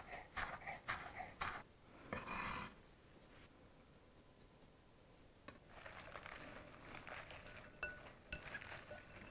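Chef's knife chopping chives on a wooden cutting board, a quick run of taps in the first second and a half, followed by a short scrape. Over the last few seconds, hands toss salad leaves and broccoli in a glass bowl: soft rustling with a few light clicks.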